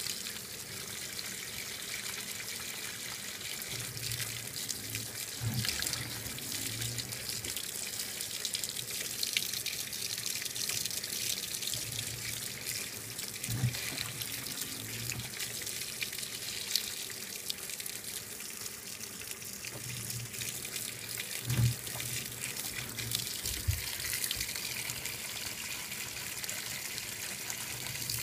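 2012 LG top-load washing machine filling: water pours in steady streams from the top inlet onto the clothes, splashing with a constant hiss. A low motor hum comes and goes every few seconds as the drum turns the load, with an occasional knock.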